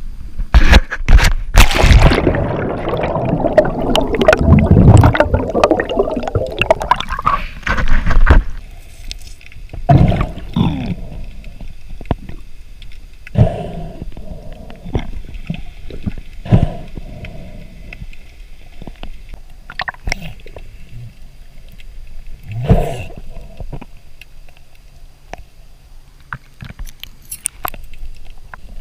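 A freediver plunging into the sea, heard on the camera as a few sharp knocks and a loud rush of splashing and bubbles that stops abruptly after about eight seconds. Then comes muffled underwater ambience with short bubbly gurgles and knocks every few seconds.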